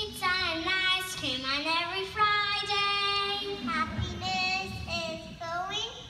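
A young child singing solo into a microphone, holding some notes and sliding between others.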